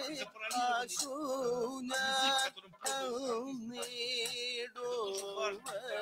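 Recorded Kathakali music played back: a man singing in a wavering, heavily ornamented line, with a short break about two and a half seconds in.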